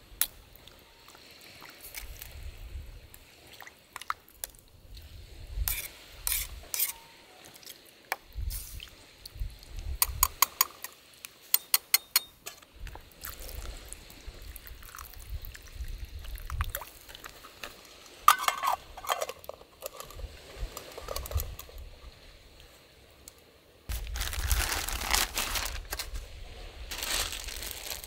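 Cooking at a small wood-burning twig stove. A metal ladle skims a steel pot of meat broth, with quick runs of sharp metal taps from it knocking the pot, and water is poured from a bottle into the pot. A longer stretch of steady rushing noise comes near the end.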